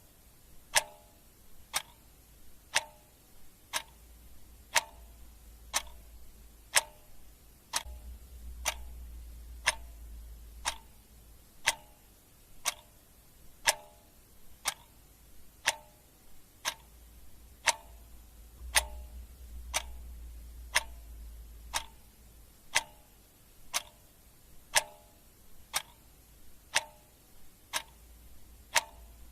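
Clock ticking steadily, about one tick a second, the ticks alternating louder and softer in a tick-tock pattern.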